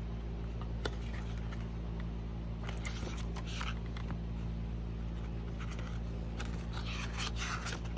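Glossy paper pages of a CD album's photo book being turned and handled, with brief rustles around the middle and again near the end and a single click about a second in, over a steady low hum.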